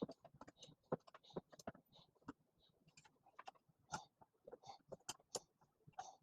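Faint, irregular clicks and taps of hands and a tool working plastic pipe fittings as nylon hose-barb adapters are snugged into a CPVC water-feed line.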